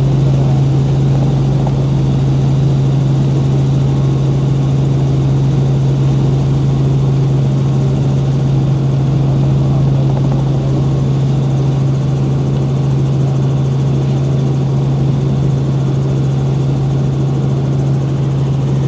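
Helicopter in flight heard from inside the cabin: a steady, loud engine-and-rotor drone dominated by one constant low hum.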